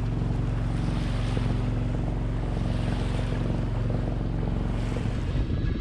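A small sailboat's engine running at a steady drone while the boat motors along, with a hiss of water and wind over it. The drone breaks up shortly before the end.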